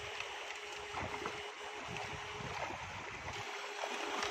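River water flowing and splashing with small scattered knocks, over a thin steady hum that drops out briefly now and then.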